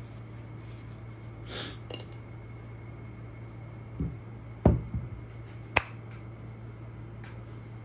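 A ceramic ramen bowl with chopsticks set down on a wooden table: two hard knocks about four and five seconds in, the second the loudest with a short ring. About a second later comes a single sharp clap as the palms are brought together. A steady low hum sits underneath.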